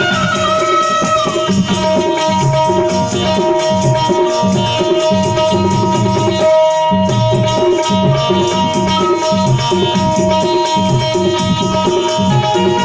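Instrumental passage of a devotional bhajan: a harmonium holding steady notes over a tabla rhythm, with a hand shaker rattling along on the beat.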